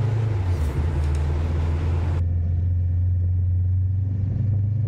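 Kawasaki Ninja 650's parallel-twin engine running steadily at low road speed, a constant low drone. Over it sits a hiss that drops away suddenly about two seconds in.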